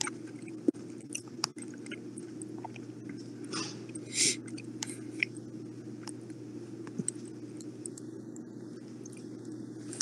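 Chips being chewed close to the microphone: scattered crisp crunches and mouth noises over a steady low hum.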